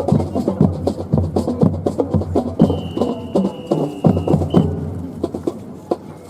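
Music with a percussive beat and low pitched notes, fading out toward the end. A steady high tone is held for about two seconds in the middle.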